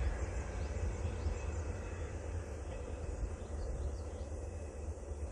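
Low, steady rumble of a diesel-hauled train receding into the distance, slowly fading.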